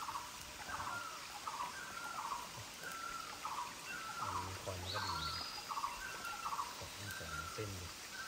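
An animal in the forest calling over and over, a short two-part call of a brief high note and a lower rattling note, about one and a half calls a second. A brief higher chirp comes in about five seconds in.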